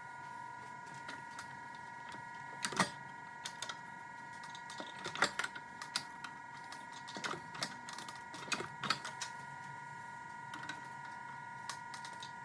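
Irregular light knocks and clicks, some with a short ring, over a steady high-pitched hum.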